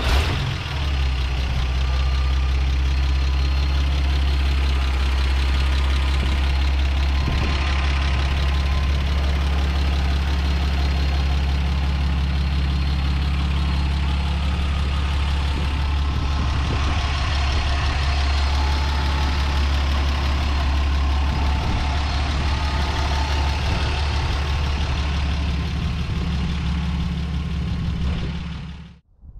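1964 GMC pickup's 305 cubic-inch V6 idling steadily, sounding healthy. The sound fades out near the end.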